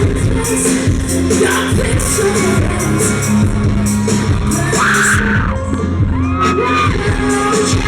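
Live rock band playing with singing over drums and sustained bass; the cymbal hits drop out about five and a half seconds in.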